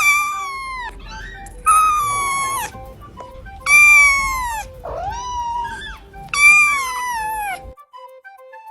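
A sleeping cat's high, whistling snore: a squeal about a second long on each breath, falling in pitch, four times roughly every two seconds, with a shorter rising squeak between. Faint background music plays underneath.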